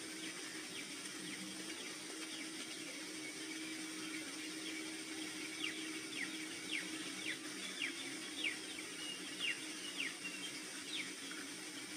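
Steady outdoor hiss with a faint low hum, and a bird giving a series of short, falling chirps, about one or two a second, from about halfway through.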